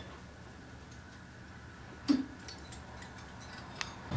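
Plastic clothes hangers clicking and knocking on a rack as shirts are pushed along it, a few sparse clicks with one sharper knock about two seconds in, over quiet room tone.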